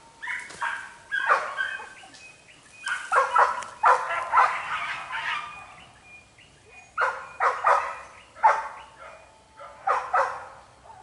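Hunting dogs barking in clusters of quick, sharp barks, several bursts with short lulls between them.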